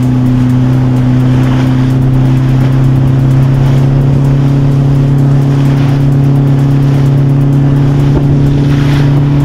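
Engine running at a steady speed: a loud, constant low drone.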